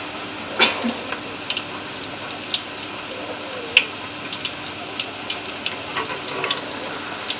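Onion pakodas deep-frying in hot oil in a kadai: a steady sizzle with scattered sharp pops and ticks.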